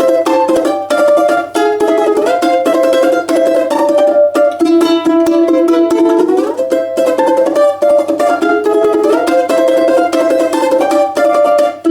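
A plucked string instrument played solo, a lively Russian folk quadrille melody picked with rapid repeated strokes on each note.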